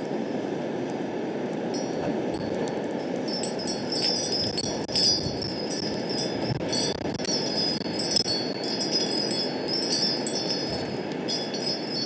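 Steady rush of strong wind, with metal wind chimes ringing again and again from about three seconds in.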